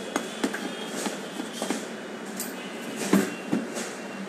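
Small hard objects being handled on a table: irregular light clicks, knocks and clinks, the loudest about three seconds in.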